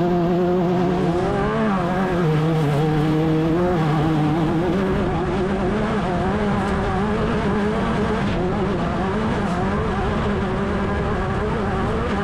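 Class 10 off-road race car's engine running hard, its pitch wavering up and down with the throttle. The pitch drops lower about two seconds in and climbs back a few seconds later.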